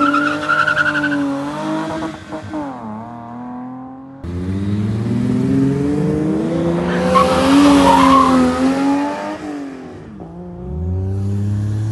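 Car engines revving and accelerating in a series of short clips. First a BMW E30's inline six with its tyres squealing as it drifts, then a VW VR6 saloon accelerating past. The engine pitch rises and falls, with a loud stretch near the middle and a fresh rise near the end.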